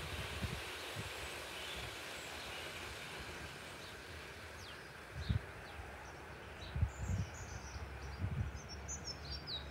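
Outdoor garden ambience: a steady hiss, with small birds chirping in short calls from about six seconds in and a few brief low thumps on the microphone.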